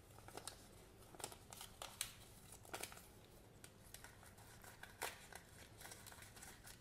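Faint rustling and crinkling of a paper leaflet being handled and folded, with scattered small clicks, as it is tucked into a plastic surprise-egg capsule.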